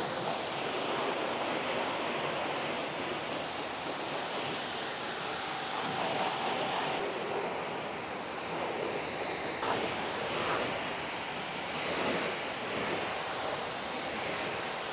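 Water spray from a hose spray gun rinsing foam off a car's engine bay: a steady hiss of spray splashing on the engine cover and parts. Its tone shifts a little twice, about seven and ten seconds in, as the spray moves.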